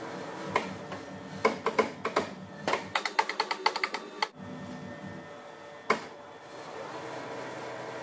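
Metal lathe running with a steady hum as it turns a steel rod. A quick run of sharp metallic clicks and rattles comes in the first half, and a single click follows about six seconds in.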